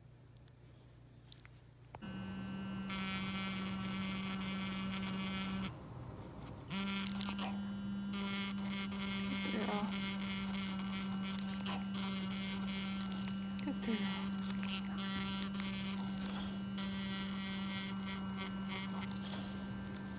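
Handheld ultrasonic dental plaque remover buzzing with a steady hum as its vibrating tip scrapes tartar off a dog's canine tooth. It switches on about two seconds in, stops for about a second near six seconds, then runs on.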